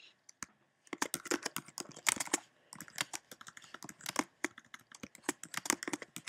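Computer keyboard being typed on: a quick, irregular run of key clicks that starts about a second in.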